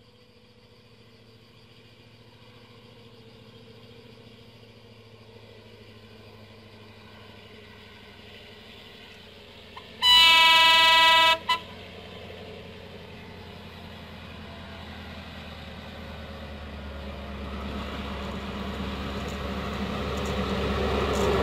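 Approaching diesel locomotive-hauled train sounding its horn: one steady blast of about a second and a half about ten seconds in, then a brief second toot. Engine and rail noise grow steadily louder toward the end as the train nears.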